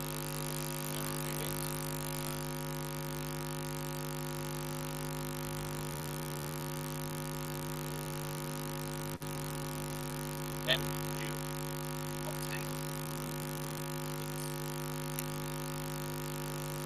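Steady electrical hum and buzz made of several even tones, with a few faint, short squeaks from a whiteboard marker about ten to twelve seconds in.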